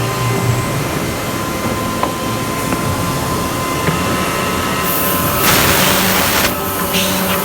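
Automatic horizontal CNC drilling machine for wood running with a steady mechanical hum and faint whine. About five and a half seconds in, a loud hiss lasts about a second, followed by a couple of shorter hisses.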